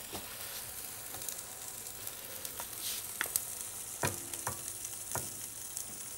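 Steady sizzling of food frying in a hot pan, with a wooden spoon knocking and scraping against a pan several times in the second half as tomato sauce is spooned out.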